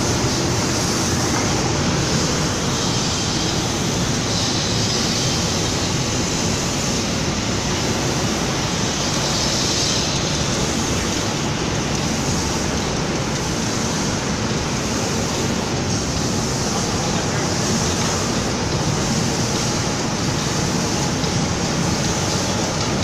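An automatic spray-painting line for cabinet doors running: a steady mechanical rumble with a constant airy hiss, unchanging throughout.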